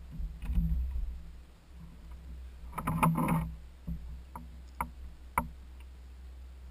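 Fishing tackle being handled aboard a plastic kayak: two bouts of rustling and knocking, the second louder, then three sharp taps near the end.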